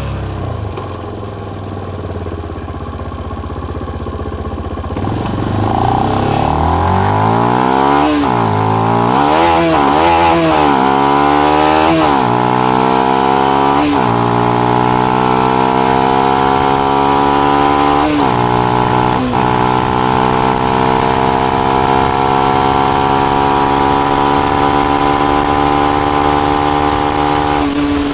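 Benelli BN125's single-cylinder 125 cc engine through its stock exhaust with the dB killer in. It pulls up through the gears, its pitch dropping at each upshift, then holds a steady cruise.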